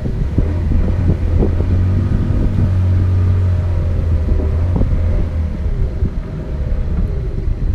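Outboard motor of a small boat running steadily with a low hum. The hum becomes quieter about five and a half seconds in.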